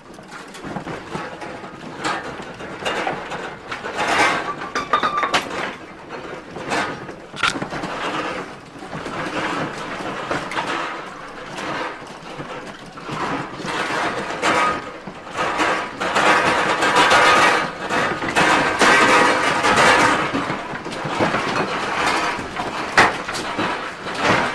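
Furniture, shelves and loose household objects rattling and knocking as a room shakes in an earthquake, with many sharp clicks and clatters that grow louder past the middle.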